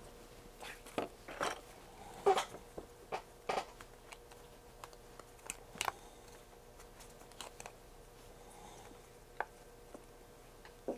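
Rubber tire being worked by hand onto a robot-kit wheel: scattered small rubbing, squeaking and clicking handling sounds, busiest in the first few seconds and sparser after.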